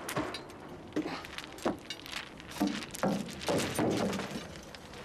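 A run of irregular clattering knocks and clinks, about a dozen, some with a short ring after them.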